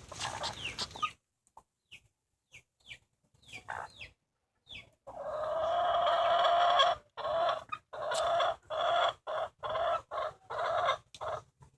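Duck making cough-like sounds: a few short calls, one long call about five seconds in, then a run of about eight short bursts. The owner wonders whether it is a cough.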